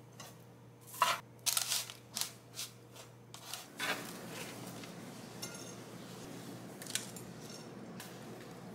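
A metal spoon scraping through and stirring crunchy baked oat granola on a baking tray, a run of short crisp scrapes in the first few seconds, then quieter scooping with one light clink about seven seconds in.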